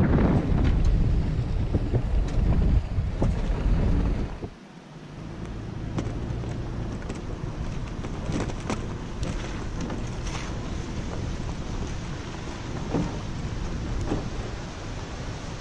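Toyota 4Runner driving, with wind rushing on the microphone and road noise. About four and a half seconds in, the sound cuts to a quieter, steady rumble with scattered small clicks as the vehicle moves slowly along a dirt forest road.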